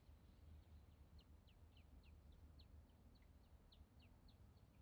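Faint, high bird chirps, each short and falling in pitch, repeated about three times a second over a steady low hum.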